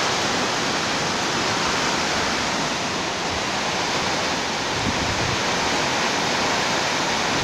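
Heavy rain pouring down onto corrugated metal roofs: a dense, steady hiss. A few brief low rumbles of wind on the microphone come about five seconds in.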